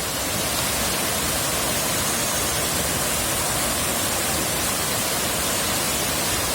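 Water falling down the Shipot mountain waterfall: a steady, even rush of noise with no breaks.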